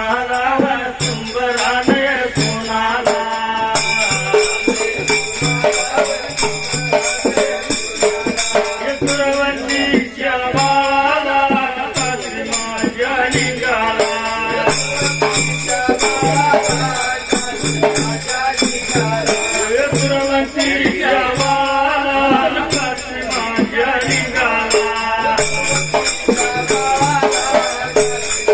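Dhangari ovi folk music: a steady drum beat with jingling rattle-like percussion and a melodic line over it.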